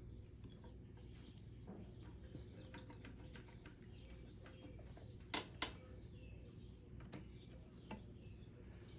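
Light clicks and taps of hand tools on small engine parts while a mower's plastic carburetor and fuel line are being taken off, with two sharp clicks close together about five and a half seconds in, over a faint steady low hum.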